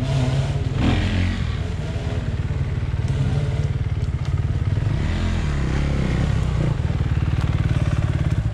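Dirt bike engine running at low revs with fast, even firing pulses, getting a little louder near the end as the bike comes up close.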